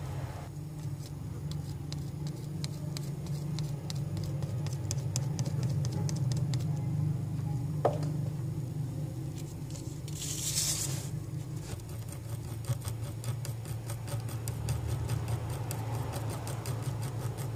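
Soldering iron tip being worked over the solder-covered SATA connector pads of a hard drive circuit board, giving faint rapid ticking and scraping over a steady low hum. A short hiss comes about ten seconds in.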